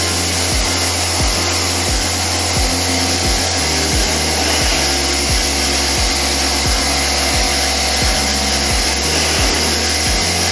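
Handheld pressure-jet spray gun hissing steadily as it sprays water over an aircon evaporator coil, rinsing off the cleaning-chemical foam, under background music with a steady beat.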